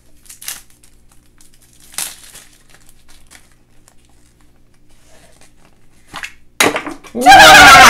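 Faint crinkling and tearing of toy packaging as a surprise egg is opened. Near the end a loud, drawn-out vocal sound from a child cuts in.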